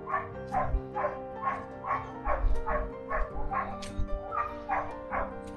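A dog barking over and over at an even pace, about two barks a second, over background music with sustained chords.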